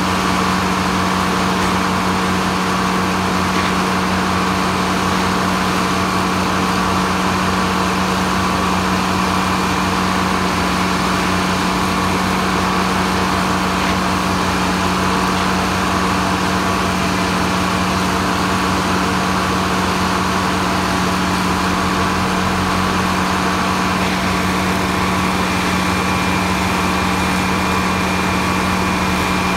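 Large circular sawmill running steadily, its engine and spinning blade giving an even, unchanging hum.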